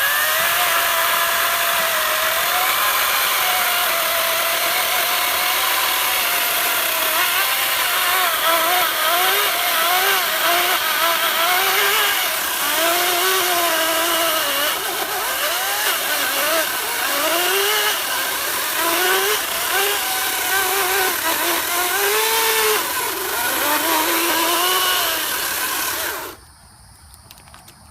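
Ryobi 40-volt cordless chainsaw cutting through a thick log: a steady electric motor whine with the chain chewing wood. The pitch repeatedly dips and recovers as the chain is loaded in the cut. It stops suddenly about 26 seconds in.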